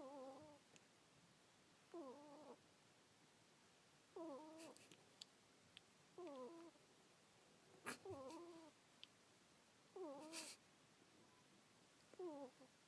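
Pet ferret snoring in its sleep: faint, short high notes that fall in pitch, one about every two seconds, seven in all. A few brief sharp clicks or snuffs come in between.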